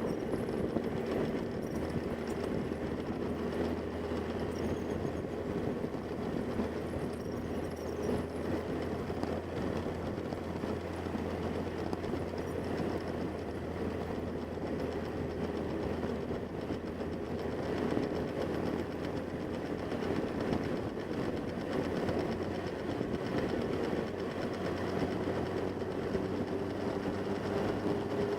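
Motorcycle engine running steadily with an even hum, its pitch rising slightly near the end.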